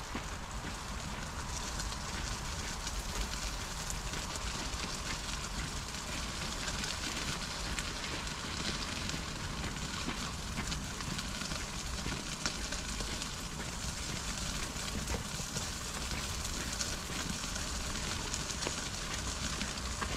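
Wheelchair wheels rolling over a gravel path: a steady crunching noise with many small irregular crackles.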